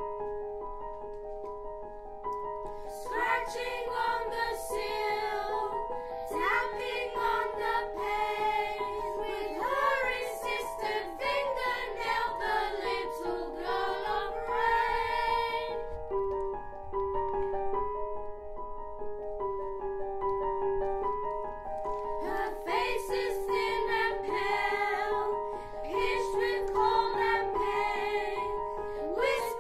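School children's choir singing a song together over a piano accompaniment. The piano plays alone for the first few seconds and again for a stretch past the middle before the voices come back in.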